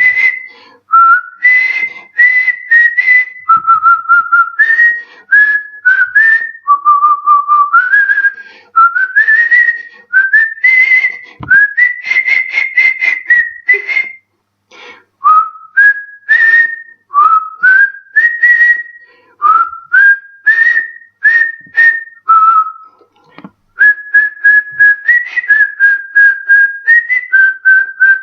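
A man whistling a melody through pursed lips, one clear note at a time, each note sliding up into its pitch. There are brief pauses about halfway through and again about two thirds of the way in.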